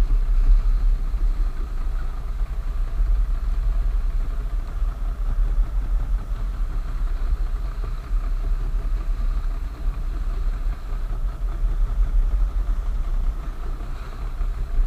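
Outboard motor of a small boat running steadily at low speed while a drift net is paid out over the stern.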